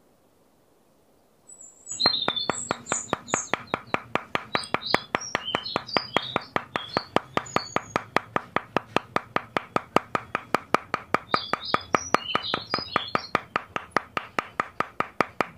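Background music with a fast, steady beat and chirping birdsong, starting about two seconds in after near silence.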